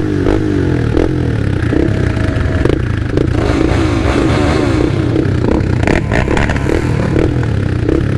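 Sport quad (ATV) engines running on the move in a group, the onboard quad's engine pitch rising and falling as the throttle is worked. A few short clattering knocks come about six to seven seconds in.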